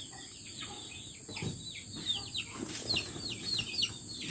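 Young chicks peeping: a run of short, high peeps that fall in pitch, a few at first and then several a second from about a second and a half in.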